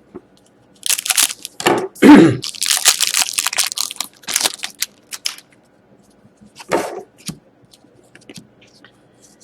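A sealed hockey card pack wrapper being torn open and crinkled by hand, in several bursts of tearing and rustling, with a short throat sound about two seconds in.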